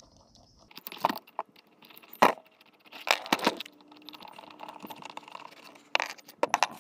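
Metal clinks and knocks as a lawn tractor's electric starter motor is taken apart by hand: a scatter of sharp clicks and clacks of metal parts, the loudest about two seconds in.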